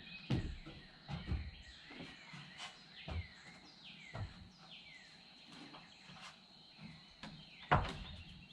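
Wild birds calling outdoors in short chirps that slide downward in pitch, repeated several times, over scattered knocks and thumps, the loudest of them near the end.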